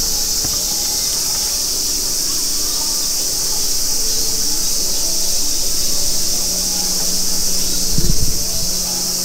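Steady high-pitched chorus of insects from the wooded bank, with a single low thump about eight seconds in.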